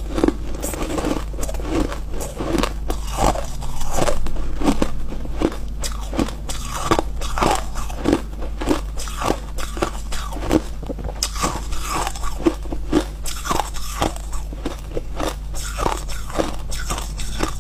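Ice being bitten and chewed in a steady run of dry crunches, a few each second.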